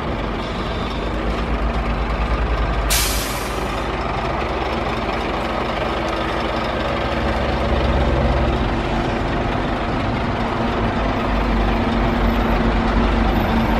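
Heavy diesel engine of a Scania G440 fire tanker running steadily. About three seconds in there is one short, sharp hiss of compressed air from its air brakes. The engine noise swells slightly near the end.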